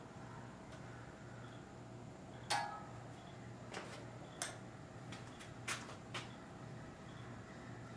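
A handful of light clinks and taps from metal tools or parts being handled on the engine. The loudest comes about two and a half seconds in with a brief ring, followed by several softer ones over the next few seconds, over a faint steady hum.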